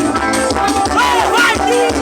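Live band music with a steady drum beat, shaker and voices singing over it.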